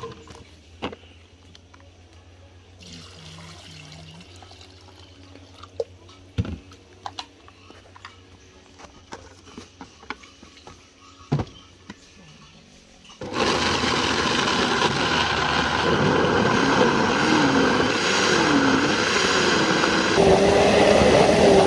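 Small knocks of chopped carrot pieces dropping into a plastic blender jar, then an electric countertop blender starts suddenly about 13 seconds in and runs loud and steady, chopping carrots in water for carrot juice, with a wavering tone in its whir.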